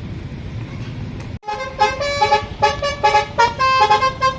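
Telolet-style musical bus horn playing a quick tune of short tooting notes, ending on a longer held higher note. It starts abruptly about a second and a half in, after steady background noise.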